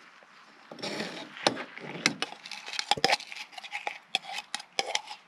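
A stainless steel muddler crushes a sugar cube and orange slices in a stainless steel cup standing on a bamboo cutting board. There are irregular knocks and scrapes, starting about a second in.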